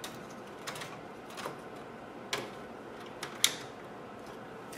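Scattered small clicks and scrapes of an EVGA 730 video card being handled and fitted into the top PCIe slot of a desktop PC case, the sharpest click about three and a half seconds in.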